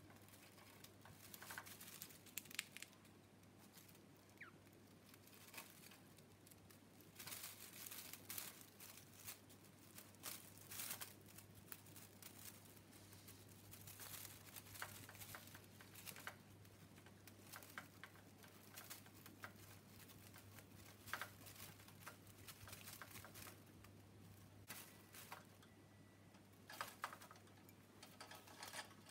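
Budgerigar chewing and tearing at a toy of shredded strips: faint, irregular crinkling and rustling in short bursts, with small clicks.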